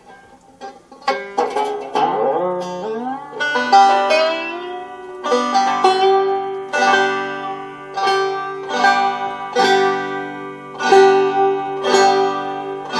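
Banjo strings being plucked to check them after the bone nut's tight string slot was widened, the fix for an open string that buzzed at the nut. A few notes slide upward in pitch early on, then the strings are plucked about once a second and ring on.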